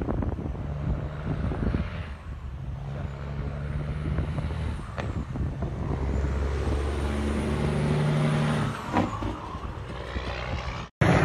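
Heavy diesel trucks driving past on a highway, their engines running with a steady low note. The sound grows louder and peaks about eight to nine seconds in as a tractor-trailer hauling a multi-axle lowboy trailer passes close.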